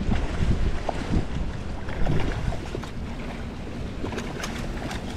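Strong wind buffeting the microphone: a low, gusting rumble that eases a little after the first couple of seconds.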